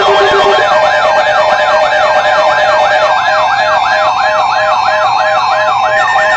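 Emergency alert tones from radio broadcasts, several at once: a siren tone sweeping up and down about three times a second over steady alarm tones. A lower steady tone drops out about half a second in, and a pulsing tone starts about three seconds in.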